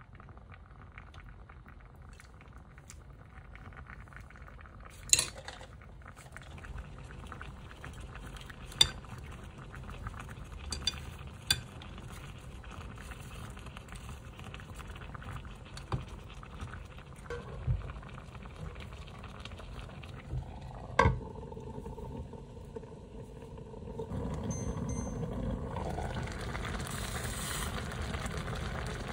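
Home kitchen cooking sounds: a pot bubbling on the stove while metal utensils clink against cookware about seven times. About 24 seconds in, a louder steady rushing sound comes in.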